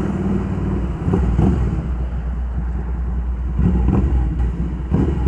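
Ducati Scrambler Icon's air-cooled L-twin engine running steadily while under way, heard as a low rumble together with road noise.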